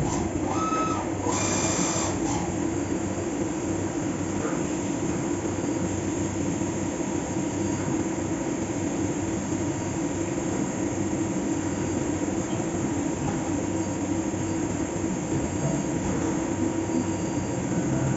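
Fagima Jazz M 5-axis CNC milling machine running a cut: a steady mechanical noise with a constant hum, and a brief sharper sound in the first two seconds.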